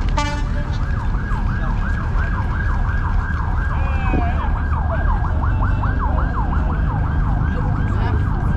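Emergency vehicle siren in a fast yelp, its pitch rising and falling about three to four times a second, over a steady low rumble of traffic. A short, brief tone sounds right at the start.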